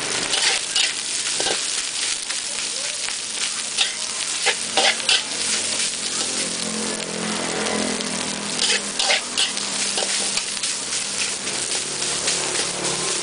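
Fried rice with egg, meat and carrot sizzling in a hot wok as a metal spatula stirs and turns it, with irregular sharp scrapes and clinks of the spatula against the pan.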